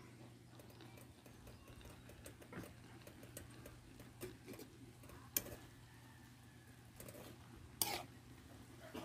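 Metal spoon stirring water spinach leaves in an aluminium pot, with a few sharp clinks against the pot, the clearest near the end, over a steady low hum.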